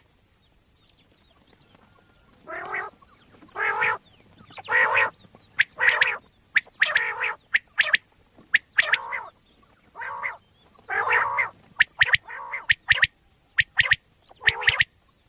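Common quail calling: a run of short calls, each under half a second, about one a second, with sharp ticks between them. The calls begin a couple of seconds in.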